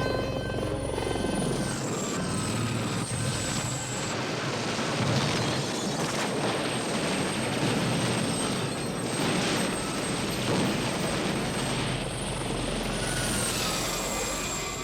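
Aérospatiale Gazelle helicopter flying low and close: dense rotor and engine noise with a high turbine whine that drops in pitch shortly after the start and again near the end.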